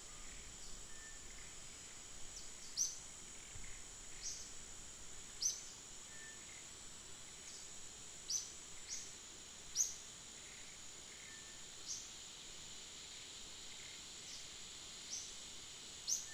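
Outdoor ambience: a steady high insect drone, with short, sharp high bird chirps at irregular intervals, about a dozen of them.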